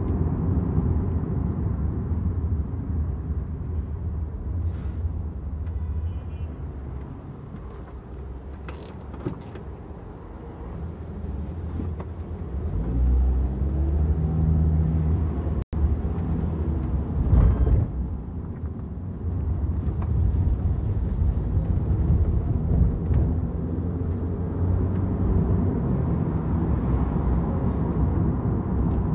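A car driving in city traffic: steady low road and engine rumble. It eases off for a few seconds midway, as if slowing, then builds up again as the car pulls away.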